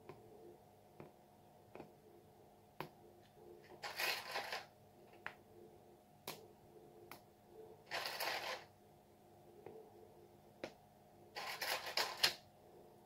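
Edible candy eyes clicking and rattling in a small plastic tub as they are picked out and dropped one at a time: scattered light clicks, with three short rattling bursts.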